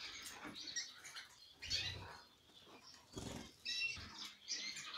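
A flock of domestic canaries in an aviary giving short, high chirps and twitters throughout, with two soft rustling sounds about two and three seconds in.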